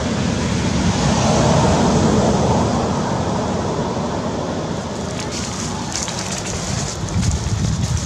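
Wind buffeting the microphone: a steady rush with a low rumble, with light crackles from about five seconds in.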